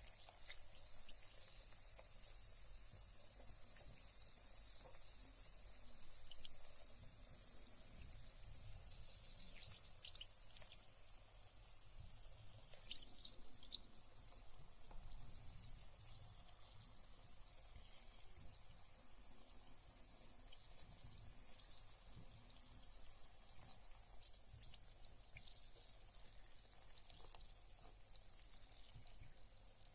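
Carbonated bath bomb fizzing in bathwater: a quiet, steady high hiss with small crackles and occasional drips.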